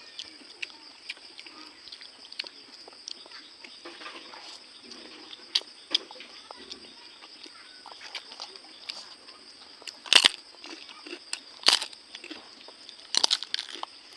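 Close-up eating sounds: chewing with small crisp clicks, then three loud crunches a second or so apart near the end as crisp food, such as papad, is bitten.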